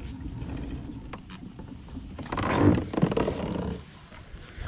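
A man's low, drawn-out strained groan a little over two seconds in, lasting over a second, with a couple of light knocks before it.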